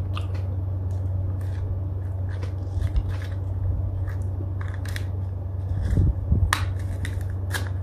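A small spoon scraping and chipping at hard-frozen yogurt in a plastic cup, giving a scatter of short sharp clicks and scrapes with a few low knocks about six seconds in. A steady low hum runs underneath.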